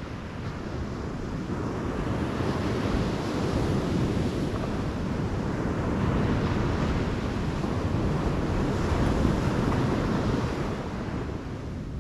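Ocean surf washing onto a sandy beach, swelling and easing every few seconds, with wind buffeting the microphone.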